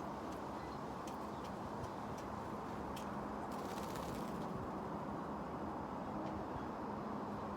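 Wind blowing steadily with a low rushing noise, with scattered faint ticks and clicks and a brief higher hiss about four seconds in.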